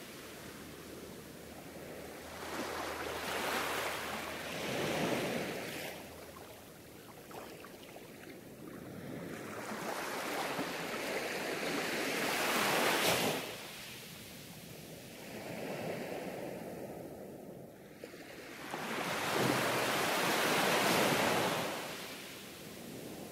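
Ocean surf washing in, a noisy rush that swells and fades in slow, uneven surges a few seconds apart.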